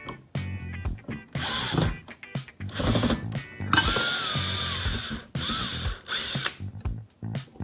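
Power drill running in several short bursts of about half a second to a second each on pocket-hole screws in 2x4 wood, with clicks and handling in the pauses between bursts.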